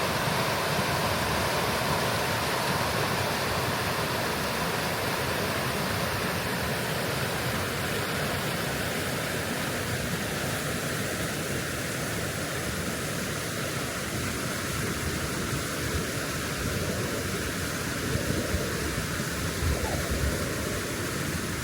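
River water flowing with a steady rush, with a few low thumps near the end.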